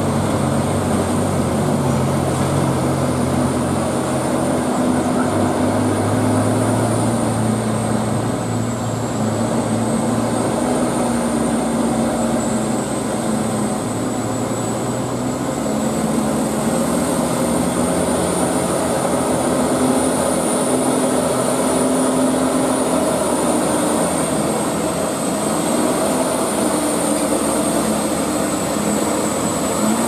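Hino 500 FM heavy truck's diesel engine running steadily as the loaded truck comes down a steep grade, with a thin high whistle wavering slightly in pitch over the engine sound.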